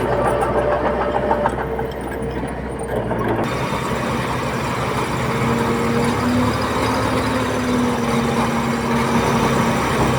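Diesel engines of heavy earthmoving machinery running steadily. The sound changes abruptly about three and a half seconds in, and a steady engine drone carries on after the change.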